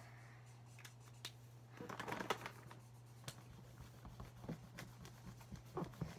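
Paper and markers being handled on a tabletop: scattered light taps and clicks, with a short burst of paper rustling about two seconds in, over a steady low hum.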